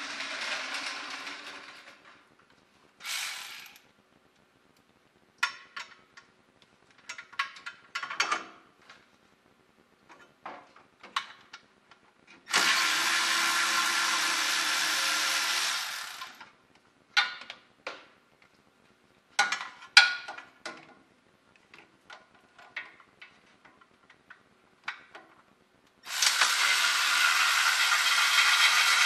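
A handheld power tool runs in two steady bursts of about three to four seconds each, one about halfway through and one near the end, backing out the two 10 mm bolts that hold the transmission-area heat shield. Between the bursts come scattered metallic clicks and knocks of the tool and the loosened shield.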